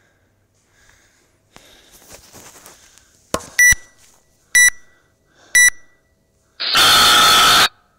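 Gym workout timer's countdown: three short beeps about a second apart, then one long beep lasting about a second that marks the end of the time cap.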